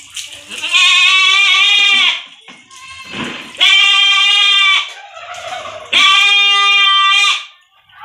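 A goat bleating loudly three times, each call a little over a second long with a slight waver in pitch, spaced about three seconds apart.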